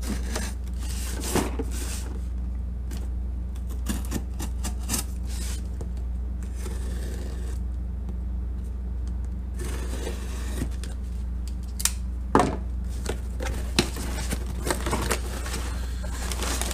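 Folding knife blade scraping and slicing along the packing tape of a cardboard shipping box, with scattered clicks and rustles of handling. Near the end the cardboard flaps are pulled open. A steady low hum runs underneath.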